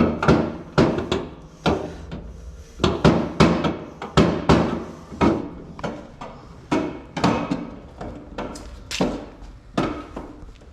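A run of irregular knocks and clanks, two or three a second, each with a short ring, like parts being tapped and handled during fitting.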